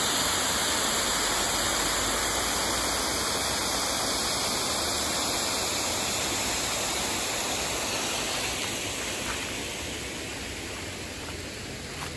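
Water cascading over a stone dam spillway: a steady rush that fades gradually over the second half.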